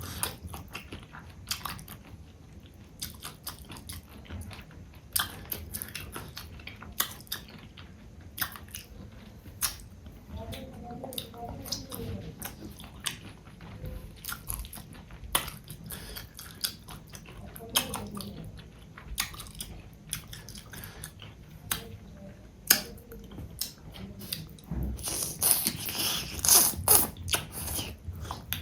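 Close-up chewing and biting of rice and fish curry, wet mouth clicks and smacks throughout, with a denser stretch of crisp crunching near the end.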